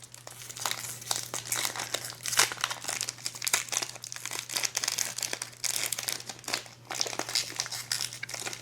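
Wrapper of a 2024 Topps Resurgence trading card pack crinkling in a run of irregular crackles as it is handled and worked open, over a faint steady low hum.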